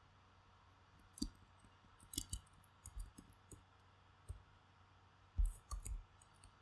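Faint, scattered clicks and taps of a computer mouse and keyboard, about a dozen irregular strokes, with a quick cluster of the loudest ones near the end.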